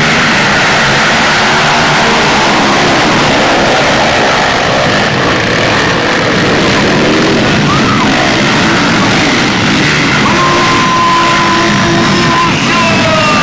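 A pack of motocross dirt bikes racing, their engines revving and changing pitch as they accelerate and shift, with one engine held at steady revs about ten seconds in.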